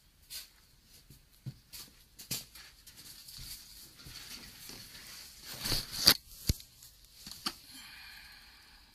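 Irregular clicks, knocks and rustling, loudest about six seconds in, over a faint steady high hiss.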